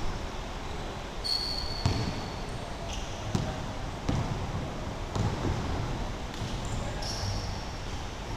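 Sneakers squeaking on a wooden gym floor several times, with a few scattered dull thuds from play on the court.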